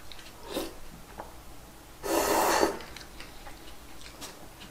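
One short, noisy slurp of udon, about two seconds in, with a few faint clicks of utensils.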